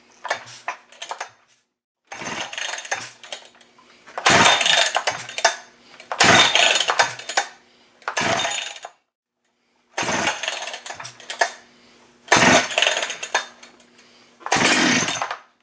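A Holzfforma G395 chainsaw, a 92 cc two-stroke, being pull-started on choke: the recoil starter rope is yanked about eight times, roughly every two seconds, the engine turning over against compression without running. It is a hard start after a piston replacement.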